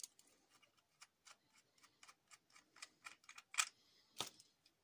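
Faint, irregular plastic clicks and taps from an action camera and its clip-on housing being handled and taken apart, with two louder clicks near the end.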